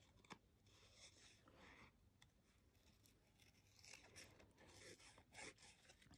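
Small craft scissors faintly snipping through white cardstock in short, scattered cuts, with light rustling of the card.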